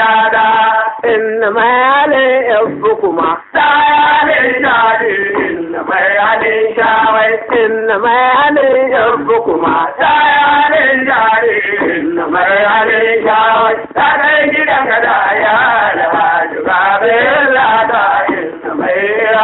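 Hausa traditional (gargajiya) song: a man singing continuously in long, winding phrases, with other voices joining in.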